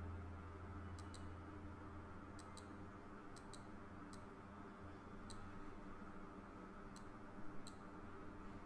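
Faint computer mouse-button clicks, a dozen or so at irregular intervals, several in quick press-and-release pairs, over a steady low hum.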